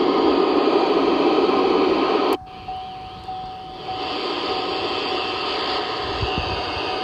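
CB radio receiver on 27.255 MHz (channel 23) hissing with loud, even static that cuts off abruptly a little over two seconds in. After a brief quieter stretch with a faint steady tone, a softer static hiss comes back as the set sits in AM mode.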